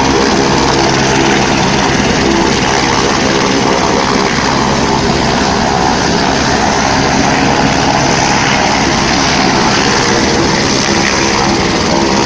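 Helicopter running on the pad close by, its engine and main rotor turning at a steady pitch. The sound is loud and even throughout.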